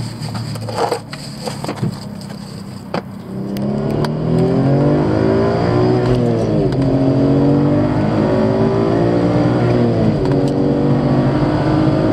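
Audi S4 B5's tuned 2.7 twin-turbo V6 idling under a few knocks and clatters, then accelerating hard from about three and a half seconds in, heard from inside the cabin. Its pitch climbs, drops sharply at two upshifts, and climbs again, on a wide-open-throttle run logging the air-fuel ratio.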